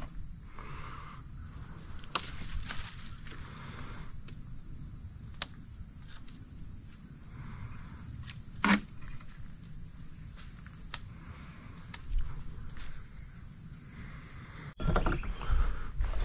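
Steady high-pitched insect chorus, crickets or similar, with a few scattered clicks and knocks; the chorus cuts off abruptly near the end as low rumbling handling noise comes in.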